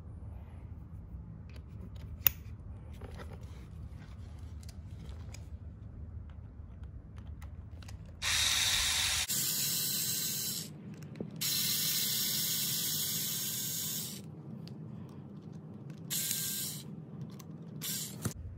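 Cordless electric screwdriver running in several short bursts of whirring, driving out the screws of an RC car's center differential case. A sharp click comes about two seconds in, and the bursts start about eight seconds in, the longest about two and a half seconds.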